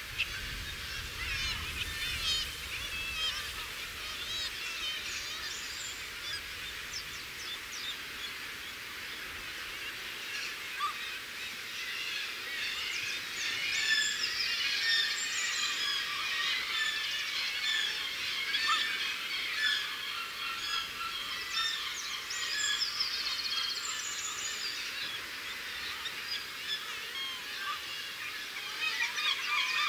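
Dense chorus of many seabirds calling over one another at a cliff breeding colony, the calls short and overlapping. It grows busier and louder about halfway through.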